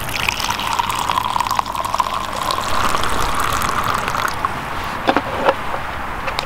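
Hot Oxo poured from a flask into a mug: a steady stream filling the cup, its pitch rising slightly as it fills, stopping about four and a half seconds in. Two last drips follow about a second later.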